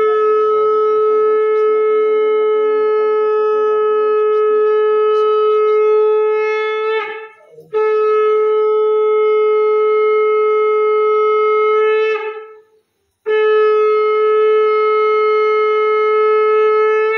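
Conch shell (shankha) blown in three long, steady notes of the same pitch, the first about seven seconds long and the next two about four to five, with short breaks for breath between them.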